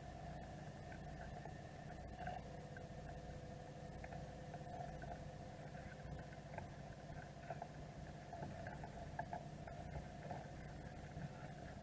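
Faint steady hum and whine from an underwater camera's own running, heard through its housing, with scattered small clicks and taps.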